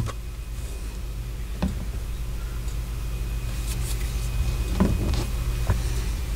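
Steady low hum with a sharp click at the start and a few faint taps and knocks as a plastic model-kit parts tree is handled.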